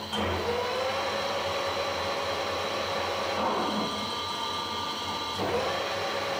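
Harrison 140 lathe spindle starting up with a quickly rising whine and running steadily. About four seconds in it is braked to a stop within about half a second, a test of the clutch-operated brake, and near the end it starts again.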